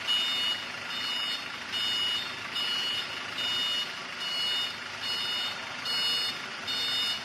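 An electronic beeper sounding a steady high-pitched beep a little more often than once a second, each beep about half a second long, over a steady background noise.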